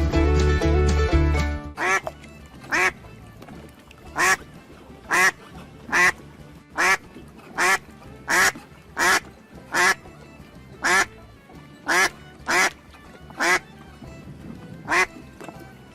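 Banjo-led country music stops about two seconds in. A duck then quacks about fifteen times, each quack a short, separate call about a second apart.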